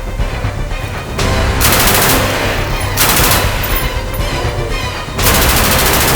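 Three bursts of rapid automatic gunfire, about 1.5, 3 and 5 seconds in, over background music with a steady bass beat.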